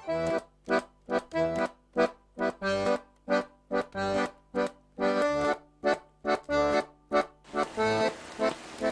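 Background music: a bouncy tune played in short, detached chords, about two to three a second, with brief gaps between them.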